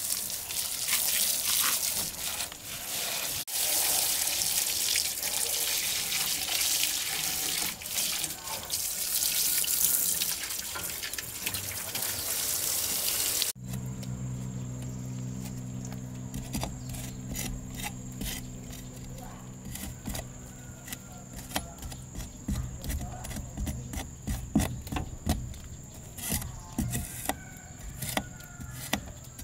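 Water from a garden hose spraying against a truck's wheel and chassis. About halfway through it cuts off, and short, uneven strokes of a metal bar follow, scraping dried mud from the tyre tread over a steady low hum.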